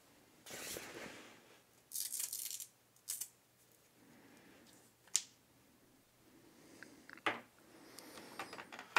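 USB cables and a plastic packaging tray being handled: short rustling scrapes about half a second in and around two seconds, then a few sharp single clicks, the clearest around five and seven seconds.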